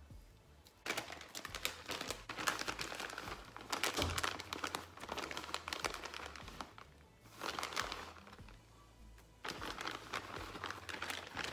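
Plastic bag of shredded cheese crinkling as it is handled and shaken out, in several bursts starting about a second in.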